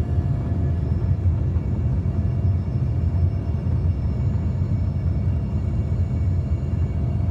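Airplane noise during a landing approach in gusty wind: a steady low rumble with faint, thin whining tones above it.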